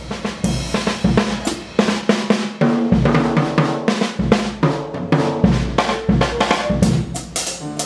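Instrumental music with a drum kit playing a busy beat of snare, bass drum and hi-hat over pitched bass and melody notes.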